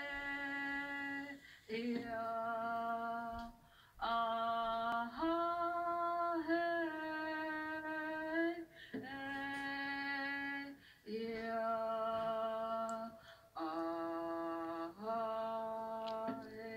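A single voice singing long, steady held notes, each lasting one to three seconds with short breaks for breath, the pitch stepping up or down between some notes. It is heard through a television's speakers.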